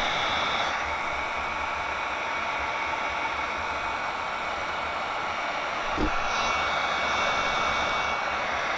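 Heat gun blowing steadily over a soft-plastic bait mold: an even rush of air with a faint motor whine. There is a light knock about six seconds in.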